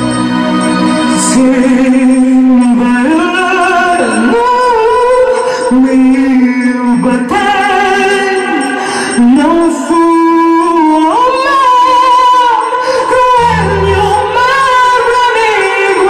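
Music with a voice singing long, held notes that waver and glide between pitches; a deep low note sounds underneath at the start and again near the end.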